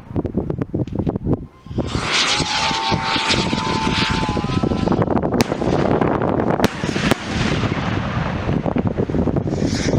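New Year's fireworks going off in a dense, continuous rumble of many overlapping bangs and crackles. A whistling tone sounds for a couple of seconds near the start, and a few sharp cracks stand out midway.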